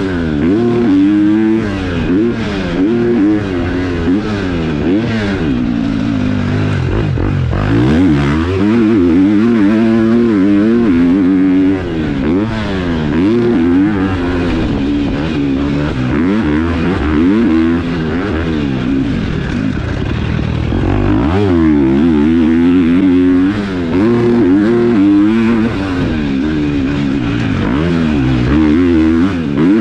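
KTM four-stroke motocross bike with a new aftermarket exhaust, ridden hard. The engine's pitch climbs and drops over and over as the rider opens the throttle, shifts and backs off.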